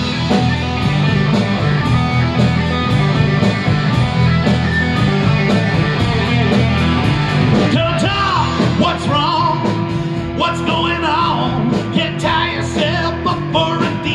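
Rock band playing live with electric guitars, bass guitar and drum kit, in a passage between sung lines. A higher lead part with bending pitches enters about eight seconds in.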